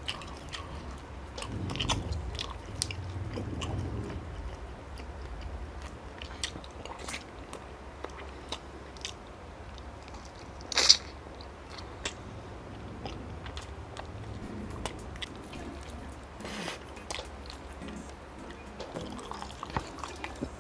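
Close-up chewing and biting of grilled chicken inasal eaten by hand, with wet mouth clicks and smacks and some crunching. A single loud, sharp smack comes about halfway through.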